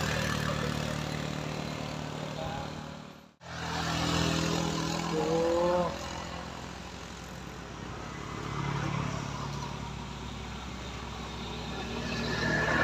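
Vehicle engines running under load on a steep uphill road, with the engine note rising briefly about five seconds in. The sound drops out abruptly for a moment a little over three seconds in.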